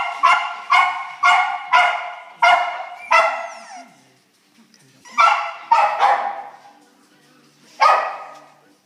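Cairn terrier × miniature schnauzer cross puppy barking in high-pitched yaps: a quick run of about seven, roughly two a second, then a pause, two more, and a last one near the end.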